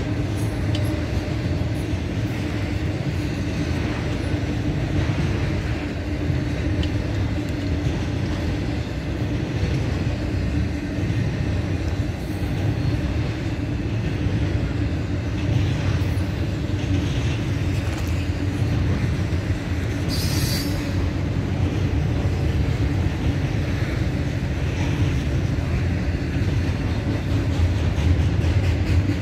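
Intermodal freight cars loaded with highway trailers rolling steadily past, with a continuous low rumble and wheel clatter on the rails. A brief high-pitched wheel squeal comes about two-thirds of the way through.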